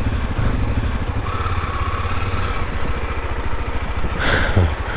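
Motorcycle engine, the single-cylinder of a Honda XRE300, running at low revs with a steady throbbing pulse, with a brief rushing noise about four seconds in.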